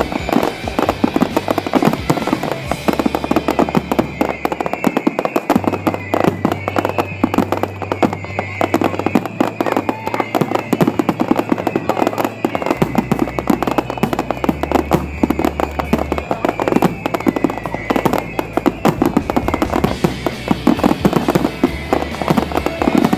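Fireworks display: a rapid, unbroken run of bangs and crackles, over music whose low sustained notes change pitch every few seconds.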